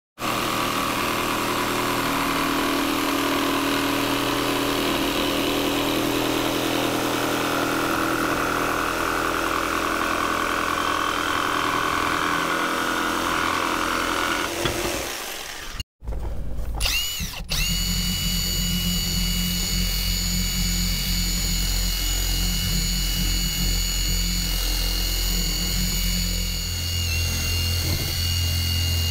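A jigsaw cutting an angle along a wooden plank, running steadily and stopping about fifteen seconds in. Then a cordless power tool spins up with a rising whine and runs at a steady high pitch, dipping briefly near the end.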